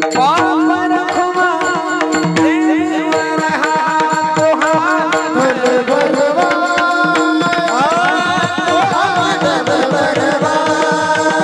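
Marathi devotional kirtan music: a melody full of sliding ornaments over a steady drone, with tabla keeping the rhythm.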